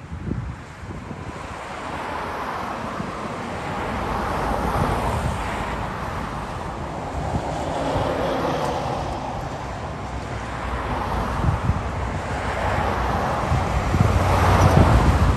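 Steady roar of an Airbus A321-231 jet airliner passing overhead, with its IAE V2500 engines swelling and easing. Gusts of wind buffet the microphone, loudest near the end.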